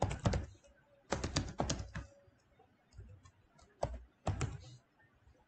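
Typing on a computer keyboard: several quick bursts of keystrokes with short pauses between them.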